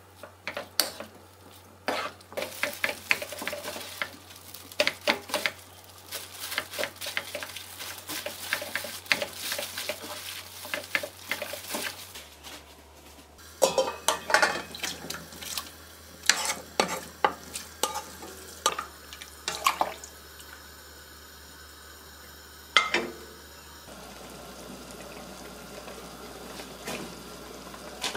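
Wooden spatula stirring and tossing a stir-fry of bracken, beef and mushrooms in a non-stick frying pan, many quick clacks and scrapes over a light sizzle. About halfway through, it scrapes and knocks the food out of the pan into a steel stock pot, with a few single knocks after.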